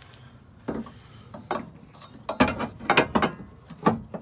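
Steel crowbar clanking and scraping against the truck's metal bumper bracket as it is hooked into place: a handful of irregular metal knocks, the loudest cluster about two and a half to three and a half seconds in.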